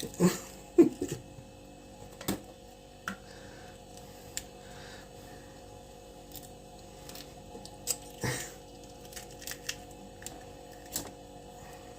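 A cat eating egg: scattered soft clicks and wet smacks of chewing and licking, over a faint steady hum.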